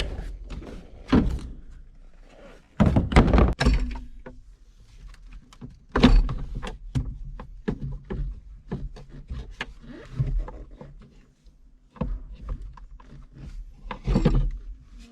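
A series of irregular thunks and knocks, as of heavy objects or parts being handled and set down, with the loudest clusters about three, six and fourteen seconds in.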